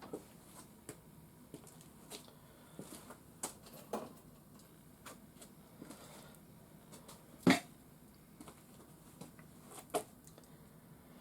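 Scattered faint clicks and knocks, with a louder knock about seven and a half seconds in and another near ten seconds.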